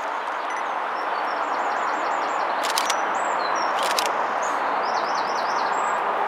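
Small birds singing, with a quick run of repeated notes, a few sliding calls and a short trill, over a steady rushing outdoor noise. Two brief clicks come in the middle.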